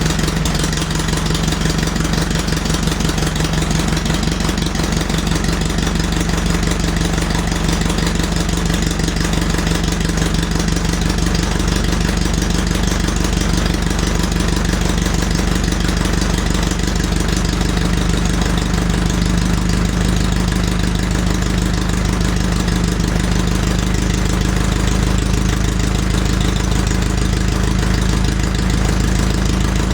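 Farmall MD's four-cylinder diesel engine idling steadily as it warms up after a hard cold start; the engine speed creeps up slightly past the middle.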